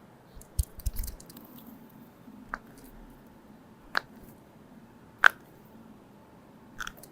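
Joints cracking during chiropractic adjustments: a few sharp single pops spaced a second or more apart, the loudest about five seconds in. Near the start there is a short cluster of thumps and clicks from hands and body being positioned.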